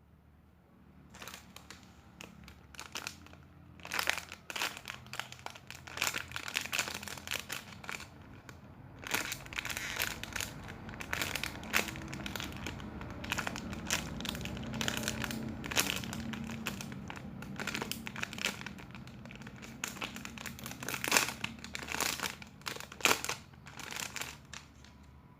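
Slow-rising foam squishy toys being squeezed and handled by hand, giving irregular crinkling and crackling that comes and goes.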